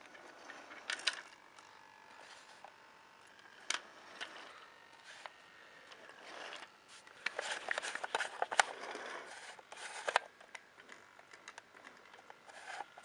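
Light clicks, taps and scrapes from a Bachmann model train and its track being handled and set running, busiest about seven to ten seconds in.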